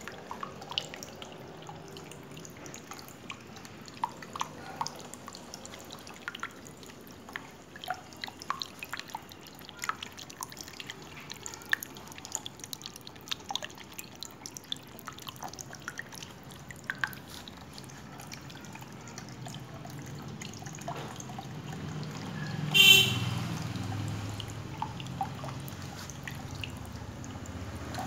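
Water from a small tabletop fountain falling in many small, irregular drips and trickles. About three-quarters of the way through, a brief honk-like tone sounds once and is the loudest thing, and a low hum swells over the last few seconds.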